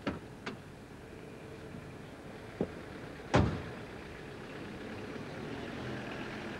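A few light clicks from a car's door and handle, then a car door shutting with a solid thump about three and a half seconds in, heard from inside the car.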